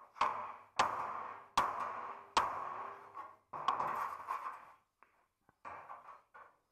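Metal being struck four times, evenly spaced a little under a second apart, each blow ringing on and dying away. Then comes a longer spell of rougher knocking and two fainter knocks near the end.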